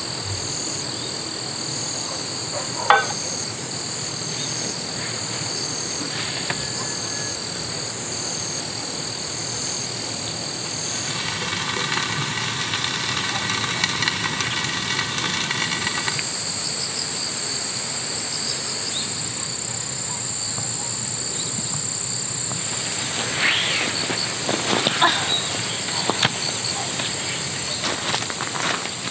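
Steady evening chorus of crickets and other insects, a continuous high trill. For about five seconds midway a buzzing hiss comes from the covered stainless pot on the grill as the beer-can chicken cooks inside. Near the end there are footsteps on gravel.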